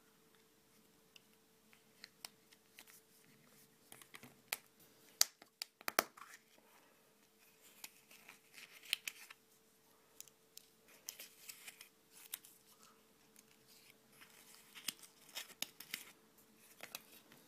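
Small toys and tools being handled by hand, giving irregular sharp clicks and taps with stretches of crinkling, over a faint steady hum. The loudest clicks come about a third of the way in.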